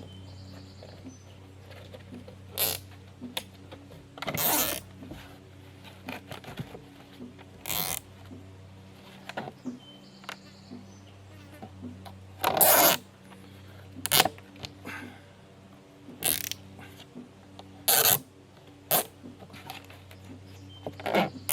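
Zip ties being pulled tight around the plastic coupler joining two corrugated plastic culvert pipes: a series of irregular ratcheting zips, some short and some about half a second long. A low steady hum runs underneath.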